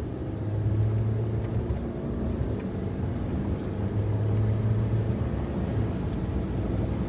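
Road and engine noise from inside a moving vehicle: a steady rumble with a low drone that swells about a second in and again around four seconds.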